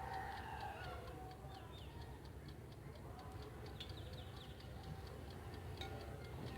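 Mechanical timer of a countertop glass-bowl convection oven ticking fast and evenly while the oven runs, over a low steady hum. A few faint bird chirps come in about two and four seconds in.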